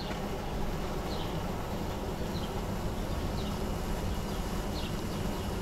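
Steady outdoor background noise, with short, high chirps that fall in pitch, repeating about once a second.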